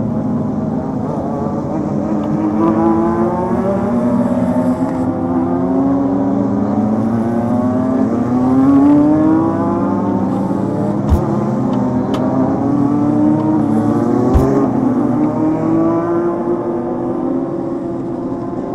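Legend race car engine, a Yamaha four-cylinder motorcycle engine, running hard at racing speed, its pitch rising and falling. Two sharp knocks come about eleven and fourteen seconds in.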